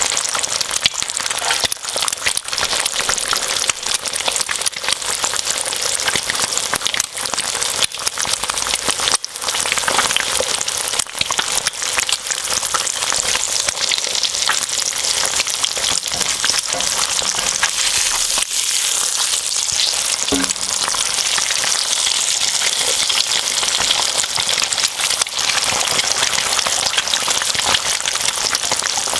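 Bacon and eggs frying in a hot pan: a steady, dense sizzle full of tiny crackles and pops, much like rain.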